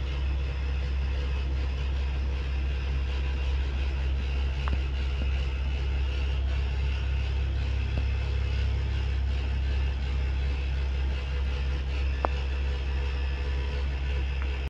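Steady low rumble with a faint hum and hiss above it, and two small clicks, one about five seconds in and one near twelve seconds.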